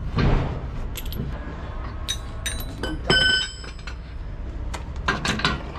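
Steel truck wheel nuts clinking and ringing as they are taken off the hub by hand and dropped on the ground, with two clusters of sharp ringing clinks about two and three seconds in. A steady low rumble runs underneath.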